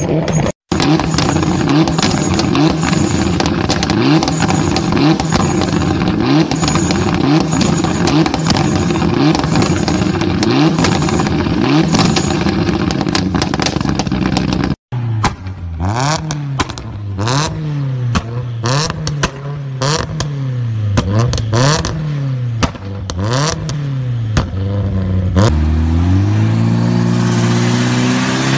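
Mitsubishi Lancer Evolution turbocharged four-cylinder engines being revved hard through loud aftermarket exhausts. Quick throttle blips, about one a second, come with many sharp pops and crackles. After a cut near the end, an Evo X's engine pulls steadily up in pitch under load on a chassis dyno.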